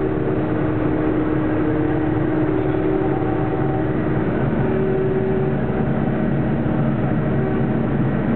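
Combine harvester running steadily while cutting wheat, heard from the operator's position: a constant engine and machinery drone with several steady hum tones that shift slightly in pitch about halfway through.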